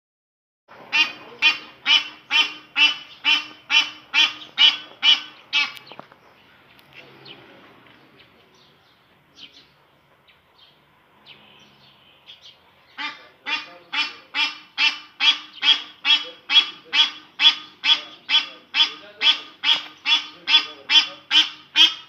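Egyptian geese honking in a fast, even series of about two to three calls a second, in two long bouts with a pause of several seconds between them.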